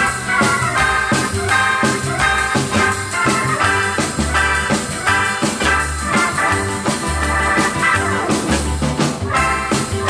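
Instrumental music from a mono pianos-and-percussion record: keyboard melody over bass notes and drums, with a steady beat.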